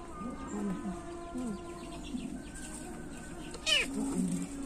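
Young kitten, about six weeks old, meowing in short calls, with one loud, high meow about three and a half seconds in.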